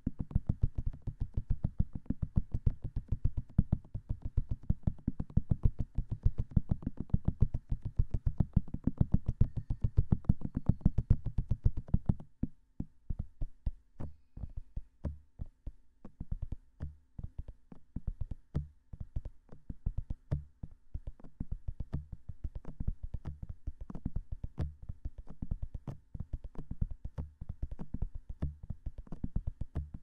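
Fingertips tapping fast on the silicone ears of a binaural microphone: a rapid flurry of soft, dull taps many times a second. About twelve seconds in, the tapping thins out to slower, more scattered taps.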